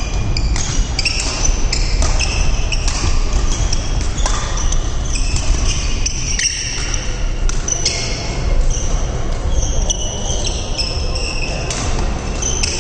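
Badminton doubles rally: sneakers squeak again and again on the court floor, with sharp taps of rackets striking the shuttlecock. A steady low hum runs underneath.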